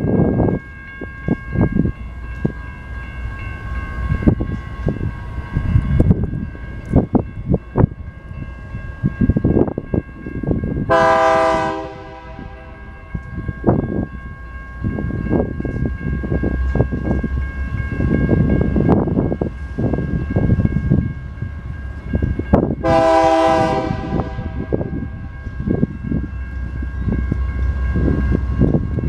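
BNSF diesel freight locomotive's air horn sounding two chord blasts, each about a second long and about twelve seconds apart, as the train approaches.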